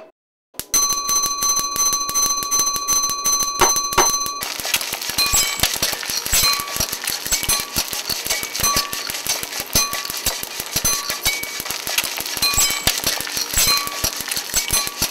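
Noise piece of clinking, ringing kitchen sounds: after a brief silence, rapid dense clicking under steady high ringing tones, changing about four seconds in to a fast repeating loop of clicks and short bell-like blips.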